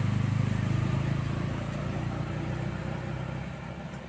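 A motor vehicle's low engine rumble fading steadily as it drives away along the road.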